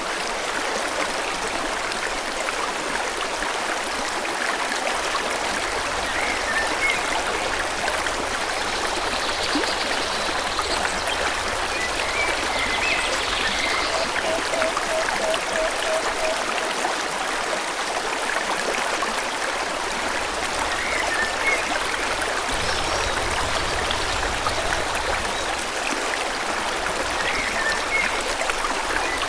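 Forest stream flowing steadily, with birds chirping now and then and a quick run of repeated low notes near the middle.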